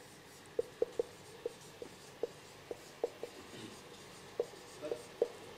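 Dry-erase marker writing on a whiteboard: a string of short, irregular squeaks as the letters are drawn.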